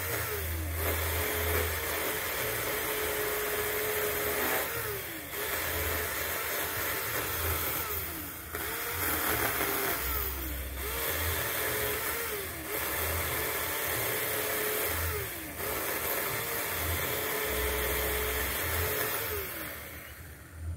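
Cordless 4-inch mini chainsaw (Bull brand) running steadily while cutting through a wood trunk about 8 inches thick, roughly twice its bar length. Its motor whine sags in pitch again and again as the chain bogs down under load, then recovers each time. The saw stops near the end.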